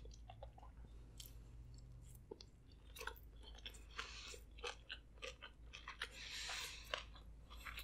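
Faint close-miked chewing of a vegan sushi roll filled with carrot, avocado and cucumber, with many small scattered crunches and mouth clicks.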